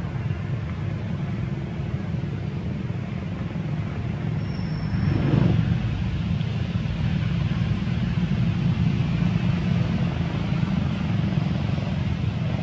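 Steady low rumble of a motor vehicle engine, swelling briefly about five seconds in.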